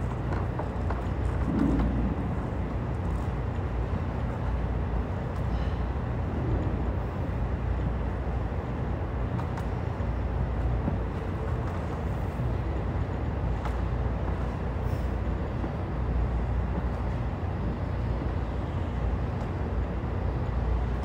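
Steady low rumble with a hiss over it: room background noise, broken by a few faint knocks.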